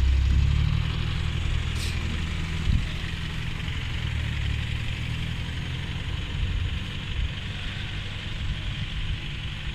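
A vehicle engine running at a low steady pitch, fading away over the first six seconds, with a steady high hiss behind it. A single short knock comes a little under three seconds in.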